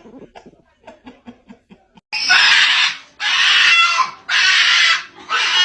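An animal giving loud, harsh squeals in repeated bursts, each under a second long, starting about two seconds in after a stretch of faint short sounds.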